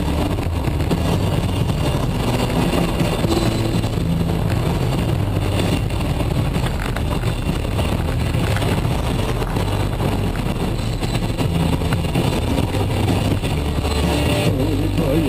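Car engine and road noise while driving, steady throughout, with the low engine note shifting in pitch now and then.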